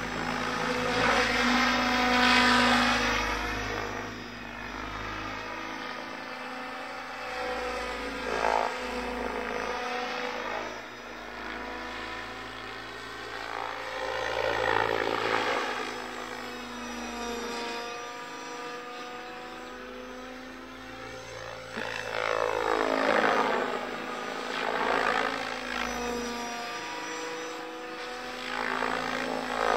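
HD 750 radio-controlled helicopter in flight, its rotor head spinning at about 1650 rpm. The whine of its rotor and drive slides up and down in pitch as it swoops and turns, swelling louder several times as it passes closer.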